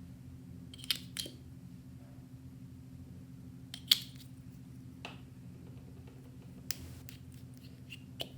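Clear slime being worked by hand, giving scattered sharp clicks and pops, about six in all, the loudest about four seconds in. A steady low hum runs underneath.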